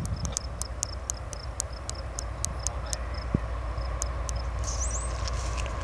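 Low rumble of an approaching train building slowly, under a run of short high chirps from birds or insects, with a brief rising high call near the end.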